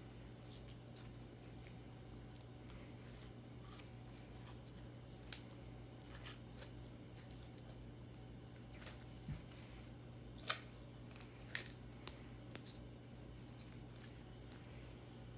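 Sprinkles slime being squished and pressed by hand: scattered sticky clicks and small pops, with a few louder pops bunched together about two-thirds of the way in.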